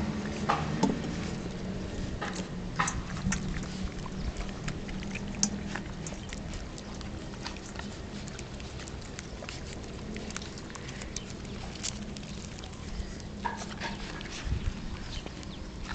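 A mother dog and her milk-soaked puppies licking and lapping, a scattered string of small wet clicks over a low steady hum that is stronger in the first half.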